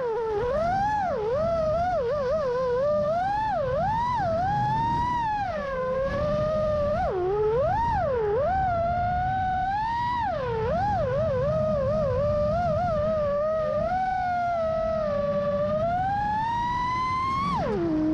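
FPV quadcopter's brushless motors and propellers whining in flight, the pitch swooping up and down constantly with the throttle, over a low rushing noise. Near the end the pitch drops steeply as the throttle is cut back.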